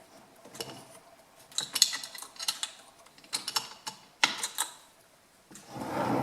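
Irregular clicks and knocks of plastic and metal parts as a chainsaw's recoil starter housing is handled and pressed back into place on the saw, with a short duller sound near the end.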